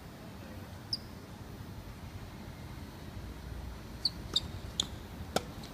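Tennis shoes squeaking briefly on a hard court during a doubles rally: one high squeak about a second in, then a quick run of four near the end, the last one sharper.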